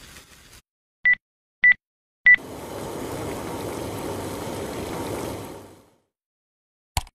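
Three short electronic beeps from an induction cooktop's touch controls, about half a second apart. Then a steady sizzling hiss from the pan for about three and a half seconds, and a single short click near the end.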